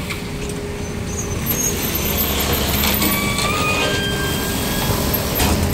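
Garbage compactor truck's engine running steadily at idle amid scooter traffic, with a few short high-pitched tones in the middle.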